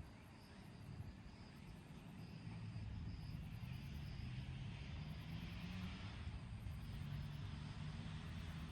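Motorcycle engine running under way, its pitch rising gently twice as it accelerates, with wind and road noise growing louder about a third of the way in.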